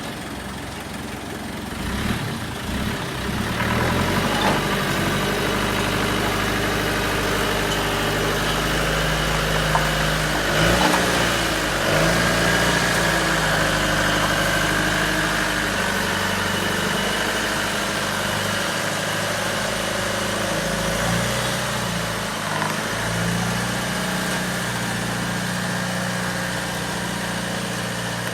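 Land Rover 110's engine running after nearly three years laid up, growing louder a few seconds in and then running steadily, its pitch shifting briefly a couple of times as the revs change.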